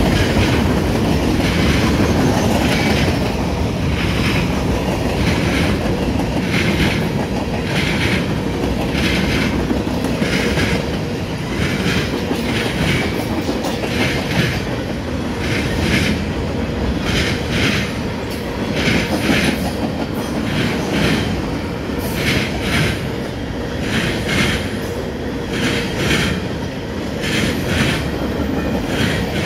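Freight train cars rolling past at close range: a steady rumble of steel wheels on the rails, with a rhythmic clickety-clack that comes round about once a second as each set of wheels goes by.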